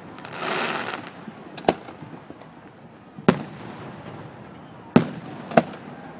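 Fireworks display: a short rushing hiss about half a second in, then four sharp booms of exploding aerial shells, one to two seconds apart, each with a brief echo.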